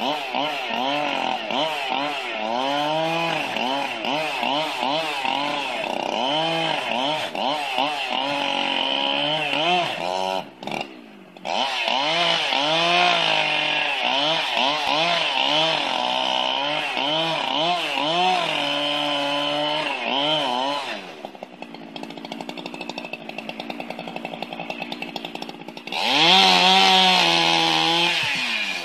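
Two-stroke chainsaw working on a felled tree trunk, its engine pitch rising and sagging over and over as it labours in the cut. It drops out briefly about a third of the way through. About two-thirds through it falls back to a lower idle, then revs high again near the end.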